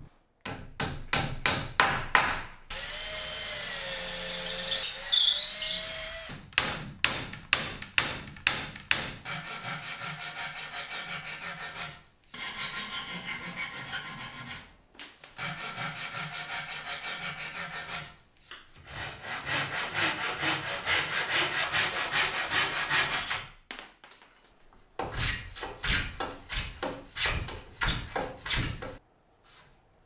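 Hand woodworking on wooden kayak frame parts: runs of quick saw strokes cutting wood, with short pauses between them and longer stretches of steady cutting and rubbing. A drill runs for a few seconds near the start.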